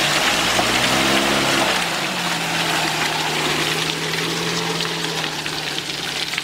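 UAZ-469 off-road vehicle's engine running at low speed under load in deep mud, revving up briefly about a second in and settling back, over a steady hiss.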